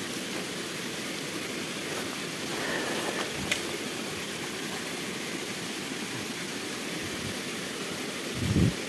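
Steady rushing of flowing water, with a sharp click about three and a half seconds in and a brief low sound near the end.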